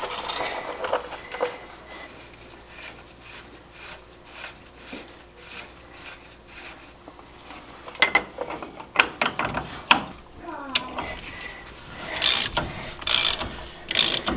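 Hand ratchet wrench clicking through repeated strokes as a fastener on the rear hub is worked, with louder knocks and scrapes of metal parts near the end.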